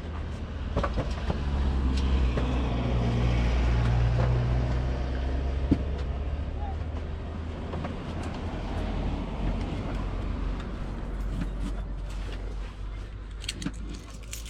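A motor vehicle's engine running close by, a steady low drone that swells about two to five seconds in and then eases off.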